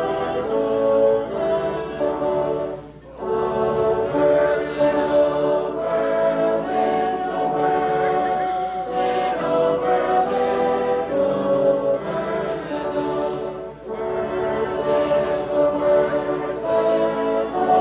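Bassoon ensemble playing a slow tune in held chords, with brief breaks about three seconds in and again near the fourteen-second mark.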